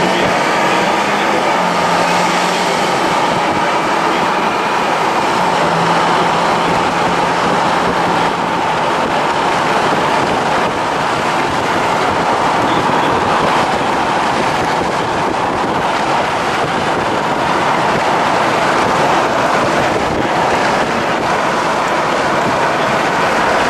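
Steady, loud rushing noise with no clear rhythm or tone.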